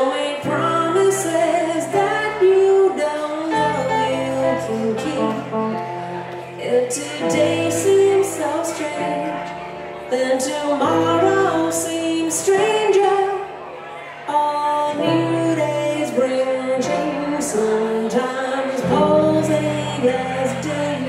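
Live blues band music: a woman singing over electric stage keyboard and a hollow-body electric guitar, with long held low bass notes under the melody.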